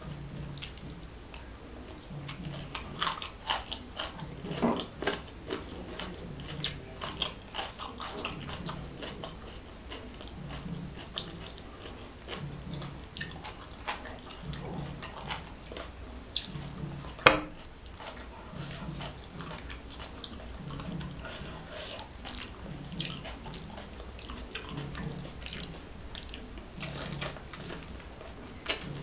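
Close-miked eating sounds of food eaten by hand: wet chewing, lip smacks and fingers squishing through rice and curry, in a stream of small sharp clicks. There is one louder sharp click about 17 seconds in, and a faint low pulse about once a second runs underneath.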